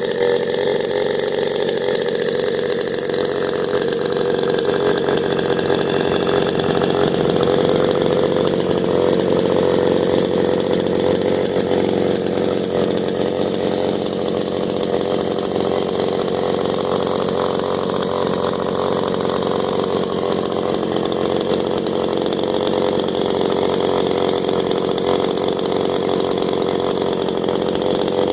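Homelite Super XL-12 two-stroke chainsaw with a dual exhaust, running steadily at constant speed.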